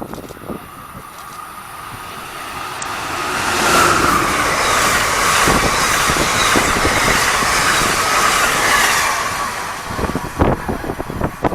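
Passenger train passing at speed: a steady rush of wheels on rail builds over a couple of seconds, holds loud for about five seconds, then fades. Gusts of wind buffet the microphone near the end.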